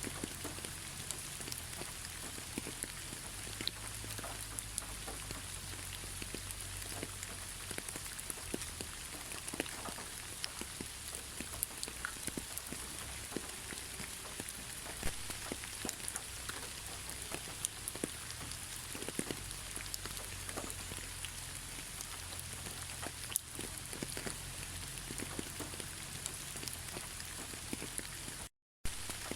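Steady rain falling on a surface, with many individual drops landing close by as short sharp ticks over a low rumble. The sound cuts out completely for a split second near the end.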